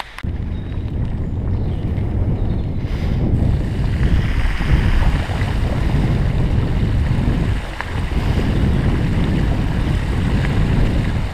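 Loud, rumbling rush of wind buffeting the microphone mixed with moving water, while travelling down a flooded path. It comes in suddenly just after the start and dips briefly about two-thirds of the way through.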